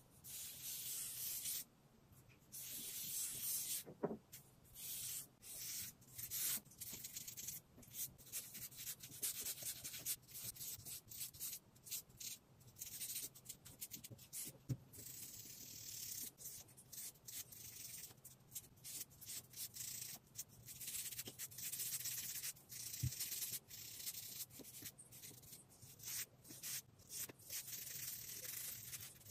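Fine-liner pen nib scratching across paper while drawing: many strokes of varying length, some long sweeps and some quick short ones, with brief pauses between.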